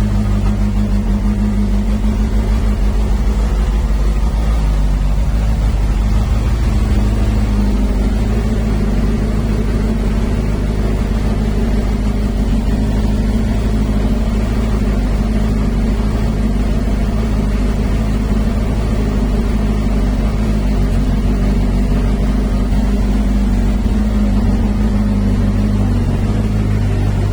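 Benda LFC 700 motorcycle engine idling steadily while the bike stands still, with no revs.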